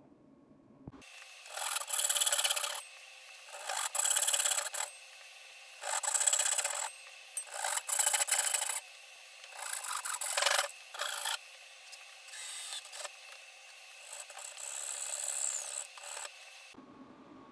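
Hand rasp or file being worked across a wooden tenon to fit it. It scrapes in about seven bursts of strokes, each roughly a second long, with short pauses between them.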